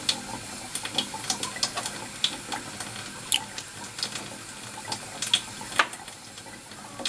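Water running from a tap, a steady hiss with scattered small clicks and splashes.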